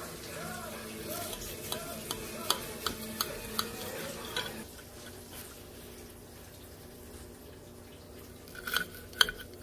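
Knife and fork clicking and scraping against a plate as a cooked pork chop is handled and cut, about twice a second at first, then again in a cluster near the end. A steady hum underneath stops abruptly about halfway through.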